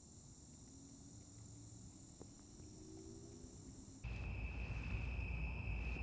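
Faint steady high-pitched trilling of insects; about four seconds in it gives way to a louder, steady, lower-pitched chorus of crickets with a low rumble underneath.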